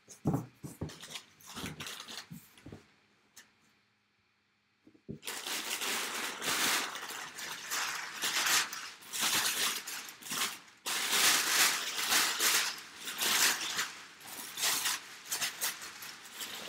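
A few handling knocks and clicks, a short lull, then about five seconds in a long stretch of crinkling, rustling and tearing as a box and its packaging are opened by hand.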